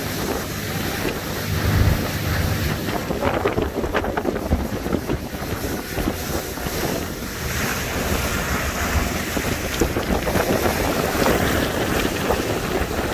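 Wind buffeting the microphone over the rush of water and spray from a motorboat under way, with its engine running underneath.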